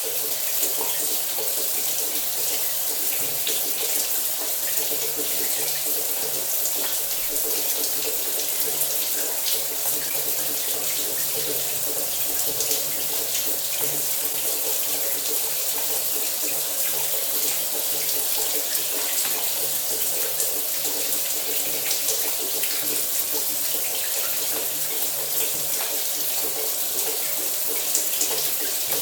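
Shower running steadily: an even hiss of water spraying and splashing, with a faint low hum underneath.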